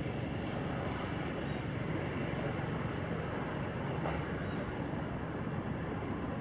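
Steady outdoor background noise: a low rumble under a high hiss, with no distinct event.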